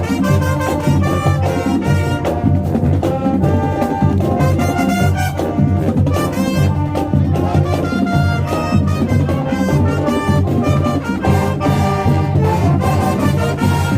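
High school marching band playing: trumpets and trombones carry a loud, lively tune over a driving drum beat.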